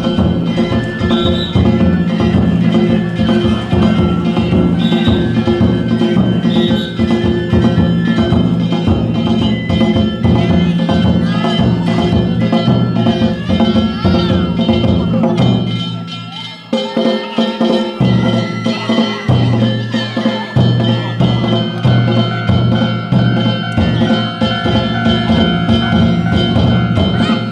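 Danjiri float music (narimono): taiko drums beaten together with clanging metal hand gongs in a steady rhythm. The drumming drops out for a couple of seconds about 16 seconds in, then starts again.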